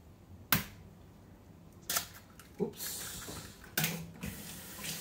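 An egg knocked sharply against a bowl's rim about half a second in, followed by a few lighter knocks. From about halfway, a kitchen tap runs.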